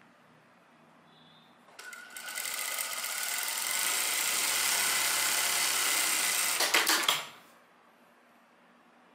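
Sewing machine stitching a seam: it starts about two seconds in, picks up speed, runs steadily for a few seconds, then stops after a few last ticks.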